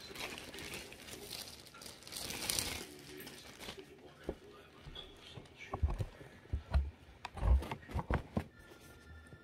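Clear plastic shoe bag crinkling and rustling as a sneaker is pulled out of it, loudest about two seconds in. In the second half come several dull thumps from the shoe being handled close to the microphone.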